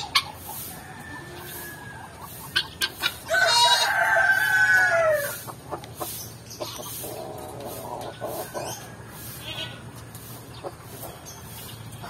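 A rooster crows once, loud and about two seconds long, a few seconds in, with softer chicken clucking around it.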